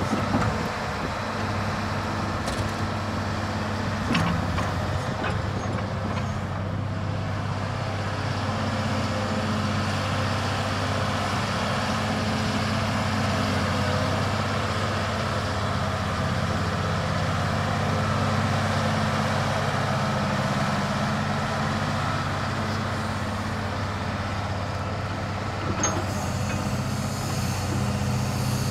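Caterpillar 235 hydraulic excavator's diesel engine running steadily as the boom and bucket are worked, with a knock about four seconds in and another near the end.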